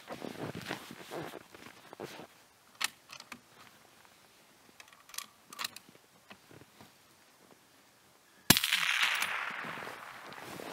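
Faint rustling and a few small clicks, then about eight and a half seconds in a single sharp rifle shot whose echo rolls away over the next couple of seconds.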